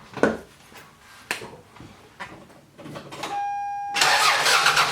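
A few light clicks, a short beep, then about four seconds in the Toyota 5S-FE four-cylinder engine is cranked over by the starter with its spark plugs out, a loud rushing spin with no firing, for a spark test of a suspect plug.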